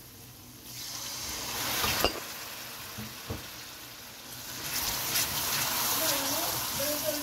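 Onion-and-spice curry masala sizzling in hot oil in a pan as water is poured in and stirred with a spatula. The sizzle swells about a second in and again from about halfway, with a short knock near two seconds.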